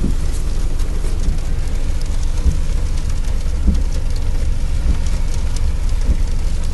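Steady rain falling on a car, heard from inside the cabin over a constant low rumble, with faint scattered ticks of drops.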